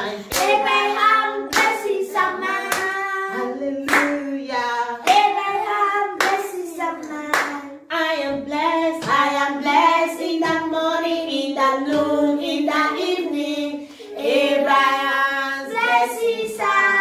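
A woman and young children singing a worship song together without instruments, clapping their hands on the beat about once a second.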